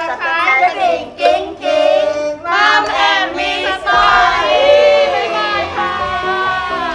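Several women's voices calling out together in a loud sing-song cheer, overlapping and gliding up and down in pitch, with long drawn-out notes in the second half.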